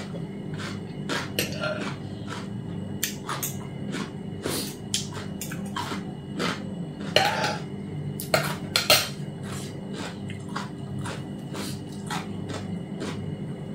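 Metal spoon and fork clinking and scraping on a plate during eating: a string of short, separate clicks, a few louder ones a little past the middle.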